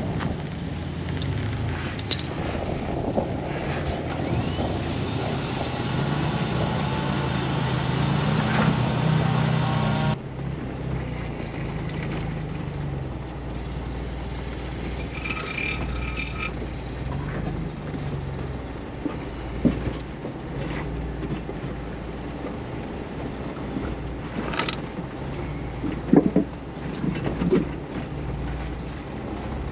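A 4x4's engine running under load while being driven out of a rock crevice, rising in pitch and level for a few seconds. The sound changes abruptly about ten seconds in, and the engine then runs on lower with a few scattered knocks.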